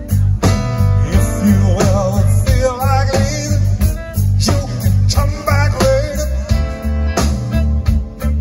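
Live band playing amplified music: electric guitars, bass and drums with a steady beat.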